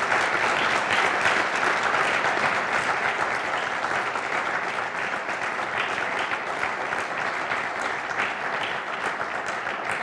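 Audience applauding, a dense patter of many hands clapping that gradually eases off over the seconds.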